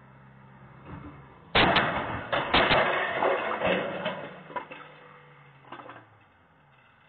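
A car collision heard through a doorbell camera's microphone. A faint engine hum is cut across about one and a half seconds in by a sudden loud crash: several hard impacts close together, then a few seconds of clattering and scraping that die away, with a smaller knock near the end.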